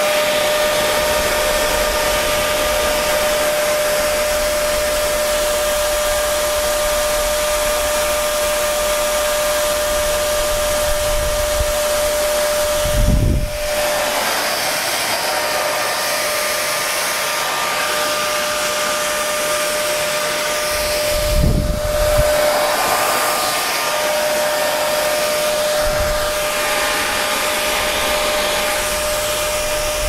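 Parlux 3500 hair dryer running steadily: a constant rush of air with a steady motor whine. Twice, about halfway and about two-thirds of the way through, there is a brief low rumble.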